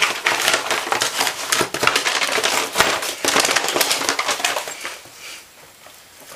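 Dog food bag crinkling and rustling in a quick, dense run of crackles as a Maltese dog roots around inside it with its head. The noise dies down about five seconds in.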